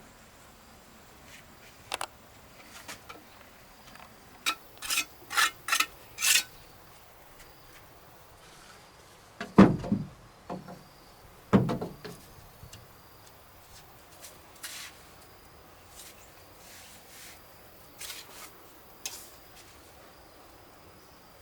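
Scattered light knocks, a quick run of four or five short scrapes, then two heavy thuds about two seconds apart, over a faint steady insect trill.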